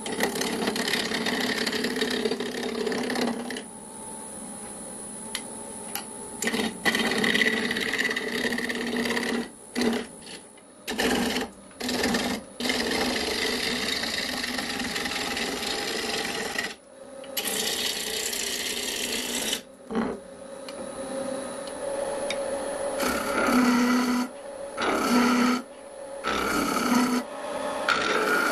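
Wood lathe spinning a wooden blank while a hand-held turning gouge cuts it, roughing it round: a steady rasping hiss of wood being cut, broken by several short gaps.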